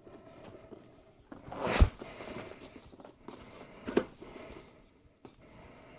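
Handling sounds on a desk: a short swelling rustle that ends in a solid thump about two seconds in, then a single sharper click or tap about four seconds in.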